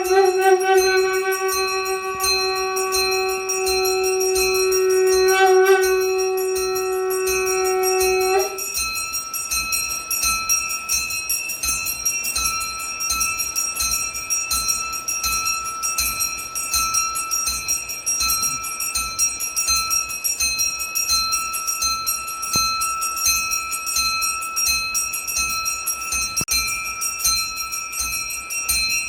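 Brass puja bells rung continuously, a steady fast ringing. For about the first eight seconds a long held, horn-like blown note sounds over them, then stops abruptly.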